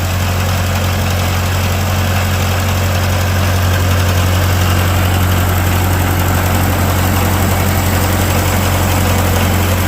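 Old Ferguson tractor's engine idling steadily, with a constant low hum.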